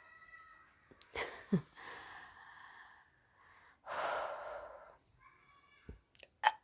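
A woman's breathing in a pause of a soda burping challenge: breathy exhales and gasps, the strongest about four seconds in, with a short low vocal sound falling in pitch about one and a half seconds in. A brief louder sound comes right at the end.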